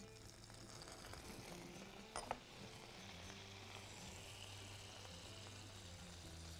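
Whole garlic cloves frying in foaming oil and balsamic vinegar in a pan, a soft, steady sizzle. A single short clink about two seconds in.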